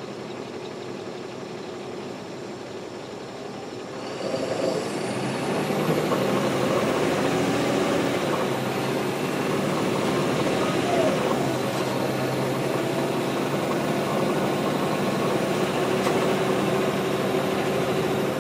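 A NABI 416.15 transit bus's Caterpillar C13 ACERT diesel engine runs quietly, then opens up about four seconds in as the bus gets under way. A high whine climbs in pitch over the next few seconds, and the engine stays loud and steady afterwards.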